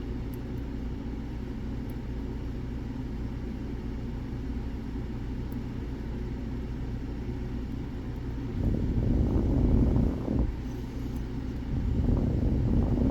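Steady low rumble, growing louder twice in the second half.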